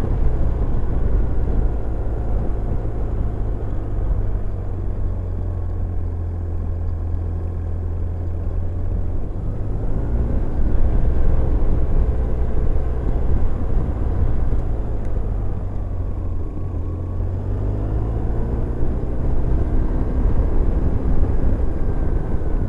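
BMW R1150GS boxer-twin engine running steadily under way, heard from on the moving bike. The engine speed rises about ten seconds in and again near the end.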